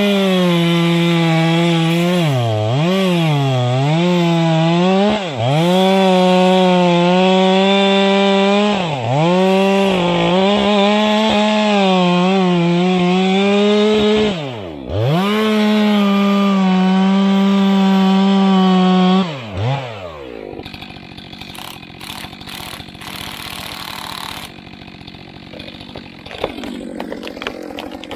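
Two-stroke chainsaw running at full throttle, cutting into a thick tree trunk. The engine pitch dips several times as the throttle is eased. About two-thirds of the way in, the engine note falls away and stops, leaving quieter noise with a few knocks.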